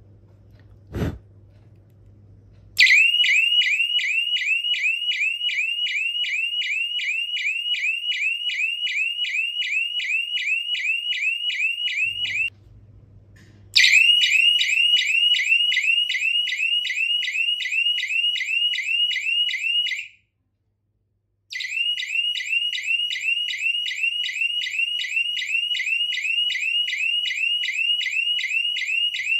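Small electronic siren horn of a homemade LPG gas-leak detector sounding its alarm: a loud, repeating rising electronic whoop, about three a second, set off by lighter gas reaching the gas sensor. A click comes about a second in, the alarm starts about three seconds in, and it breaks off briefly twice.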